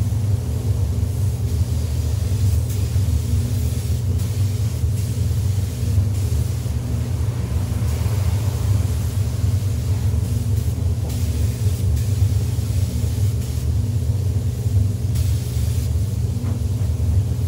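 Steady low rumble of a spray booth's ventilation running, with several short bursts of hiss from a compressed-air spray gun being triggered on and off.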